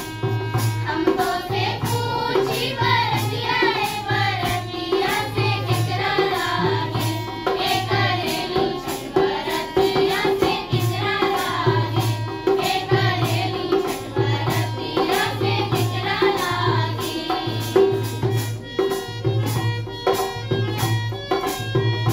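A group of children singing a Chhath puja devotional song in unison, accompanied by a harmonium's held notes and a hand drum keeping a steady beat. Near the end the voices stop and the harmonium and drum play on alone.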